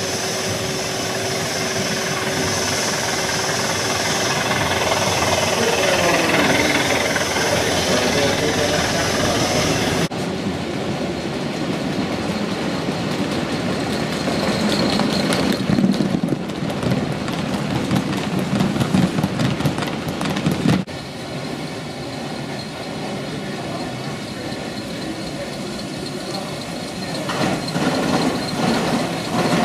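Gauge 1 model trains running on the layout track: a steady rumble and clatter of wheels on rail, with dense rapid clicking in the middle part and abrupt changes in the sound at two cuts.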